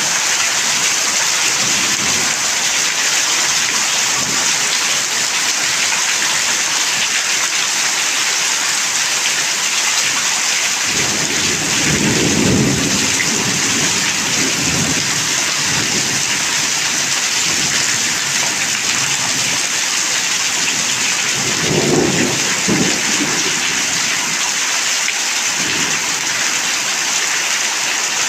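Heavy rain pouring steadily. Twice, a little under halfway and again about three quarters through, a low rumble swells up beneath it.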